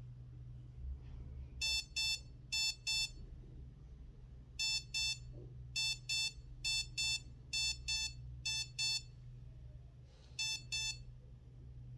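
Remote-controlled electric dog training collar beeping in its warning-tone mode: eight quick double beeps at one high pitch, each pair set off by a press of the remote, with short pauses between pairs.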